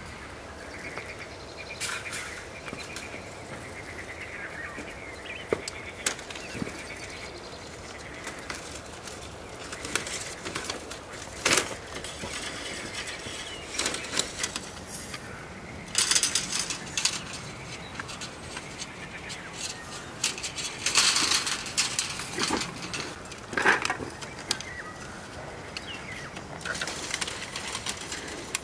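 Dry reed stalks rustling and knocking together as they are handled and bound to a reed wall with wire, with scattered sharp clicks and a few louder rustling bursts.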